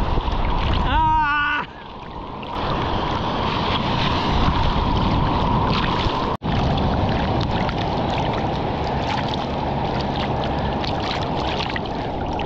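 Wind buffeting the microphone over the noise of ocean surf, with a short wavering call about a second in. The sound cuts out abruptly for an instant about six seconds in.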